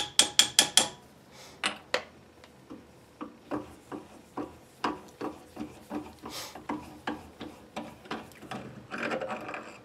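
A small hammer taps the crank handle onto the lead screw shaft of a Clausing 8520 milling machine: five quick, ringing metal taps, then two more. The handle is then cranked, giving a run of light clicks, two or three a second, as the table lead screw winds out, with a short scraping rub near the end.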